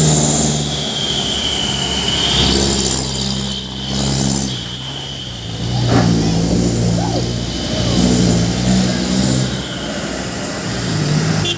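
Diesel engines of heavily loaded trucks labouring up a steep climb, the engine note rising and falling as a loaded Isuzu truck passes close by and another truck follows. A short knock about six seconds in, as the first truck goes past.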